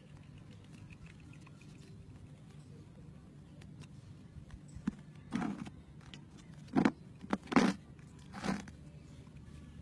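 Small plastic slime tubs being handled: four short, sharp plastic noises in the second half over a low steady hum.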